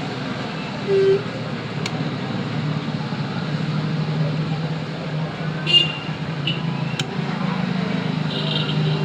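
Hot-air SMD rework station blowing steadily, a constant hissing rush with a low hum, while it heats the old charging pins off the board. A short low tone sounds about a second in, and a few faint clicks come later.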